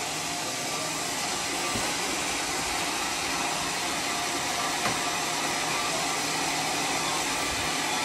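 Homemade band sawmill running steadily, a constant machine hum with a faint whine, with a light knock about five seconds in.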